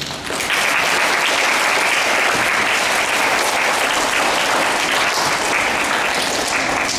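An audience of schoolchildren clapping. The applause starts about half a second in, holds steady, and tapers off near the end.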